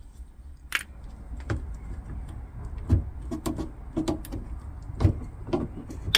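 Irregular clicks and light knocks of metal parts being handled and worked loose on a car suspension strut, about a dozen spread unevenly through the few seconds.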